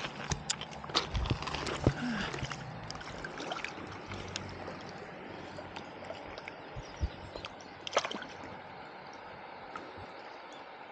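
River water: irregular splashing and sloshing in the first few seconds, then the steady flow of the river, with a single sharp knock later on.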